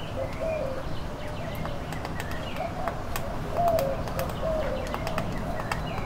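Wild birds calling: short wavering call notes repeated over and over, with fainter higher chirps and scattered sharp taps.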